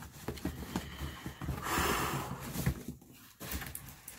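Rustling and small knocks of packaging being handled inside a cardboard shipping box as products are taken out, with a longer rustle in the middle.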